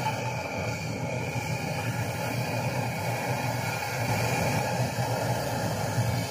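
Portable gas camping stove burning steadily under a pan of soup: a constant hissing rush with a low hum underneath.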